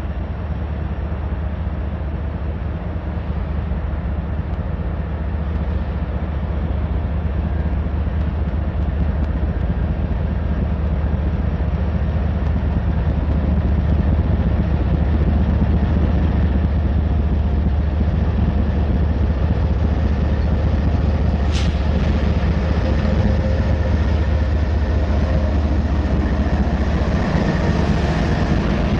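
Norfolk Southern freight train's diesel locomotives approaching and passing close: a steady low engine rumble grows louder over the first half. A brief sharp high noise comes about two-thirds in, and the noise rises again as the lead locomotives go by near the end.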